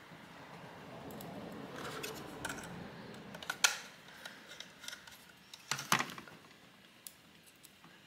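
A 2.5-inch SATA SSD and its metal laptop drive caddy being handled and screwed together with a small screwdriver: faint rustling, then sharp clicks of metal on the drive about three and a half seconds in and again near six seconds.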